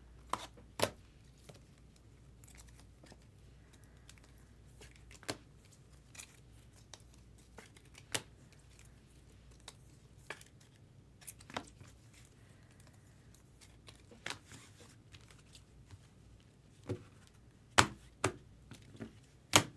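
Trading cards and packs being handled on a table: scattered sharp clicks and taps with light paper and wrapper rustling, a few louder snaps near the end.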